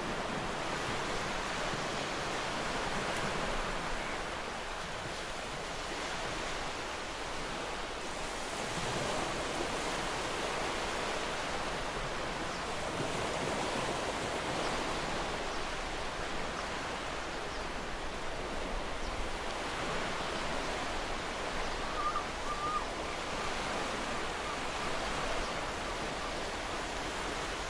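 Sea surf washing against a rocky shore: a steady hiss that gently swells and eases.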